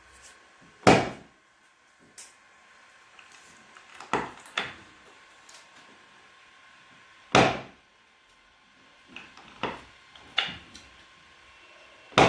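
Sharp knocks and thuds from chiropractic adjustments on a treatment table, about seven at uneven intervals. The loudest come about a second in, about seven and a half seconds in and at the very end.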